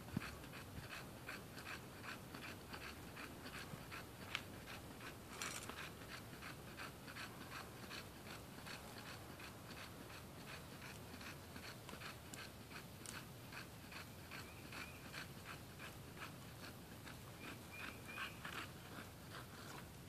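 Bulldog panting hard, a steady rhythm of about three breaths a second.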